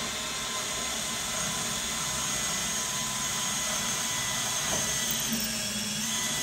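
Cordless drill running steadily as it bores a handle hole through a kitchen cabinet door, guided by a paper template.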